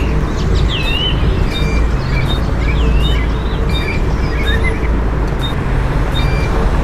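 Volvo B7TL bus's six-cylinder diesel idling, heard from on board as a steady low rumble with a hum. Short high electronic beeps repeat about every three-quarters of a second. A few birds chirp in brief rising and falling calls.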